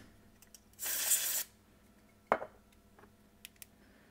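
A short blast of compressed air from a blow nozzle, about half a second long and starting about a second in, blowing dust off a car radio's CD mechanism. A single sharp click follows about a second later.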